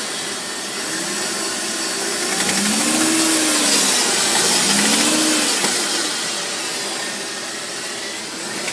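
Mercedes G-Class engine running with a rattle, revved up and back down twice in the middle: the rattle the owner hears for a minute or two after every start, cold or hot, before it goes away.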